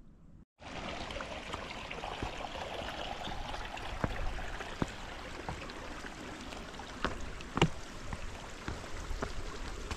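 A steady rush like running water starts just after a brief cut at the beginning, with scattered light clicks and one sharper knock about seven and a half seconds in.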